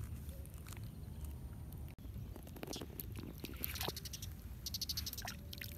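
Small splashes and dripping from shallow paddy water being scooped by hand over a baby monkey being bathed. The splashes come in a quick series in the second half.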